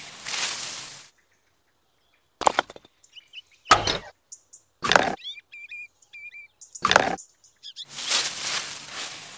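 Four sharp crashing hits spaced a second or two apart, with small birds chirping between them. A rushing noise runs for about the first second and comes back near the end.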